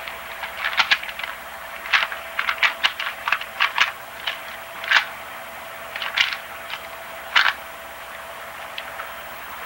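A plastic Rubik's Cube being turned fast by hand, its layers clicking and clacking in quick irregular runs of short snaps. The turning stops about three quarters of the way through, leaving a faint steady hum.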